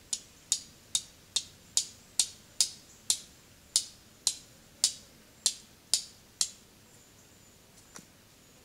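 Steel striker hitting a flint, about fourteen sharp clicks at roughly two a second that stop about six and a half seconds in, with one faint strike near the end. The strikes throw sparks onto tinder to catch an ember for a fire.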